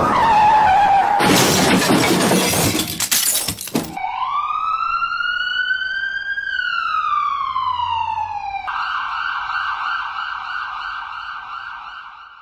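A crash sound effect: a short falling screech, then about three seconds of crashing and shattering glass. A siren follows, wailing up and then down once. About nine seconds in it switches abruptly to a steady, rougher siren tone that fades out at the end.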